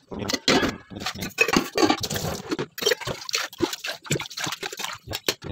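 Wet, splashy handling of flour dough and water in a steel plate: a quick, irregular run of short squelches and splashes as the dough is worked by hand.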